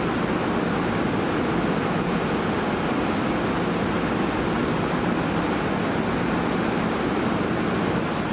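Hankyu 8300 series train rolling slowly into an underground station through the tunnel: a steady wheel-and-running noise, with a brief high hiss near the end.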